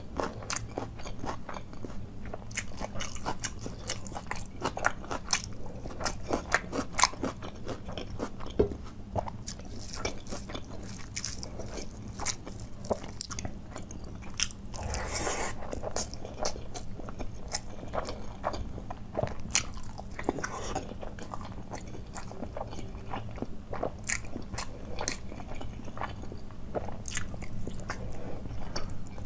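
A person biting and chewing crisp food: a rapid, uneven run of sharp crunching clicks. There is a brief, louder patch of noise about halfway through.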